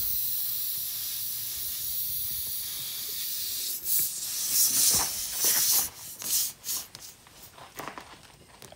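Air hissing steadily out of a punctured tubeless lawn tractor tire around the plug insertion tool. About four seconds in it surges louder in several rushes with scraping as the plug is worked into the hole, then drops to faint rubs and ticks.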